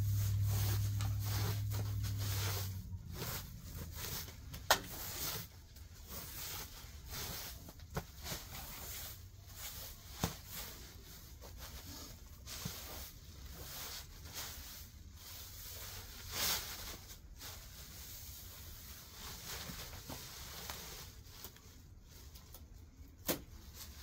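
Dry pulled weeds and grass rustling and crackling as they are handled and stuffed into a woven plastic bag, with scattered sharp clicks. A steady low hum sounds for the first three seconds, then stops.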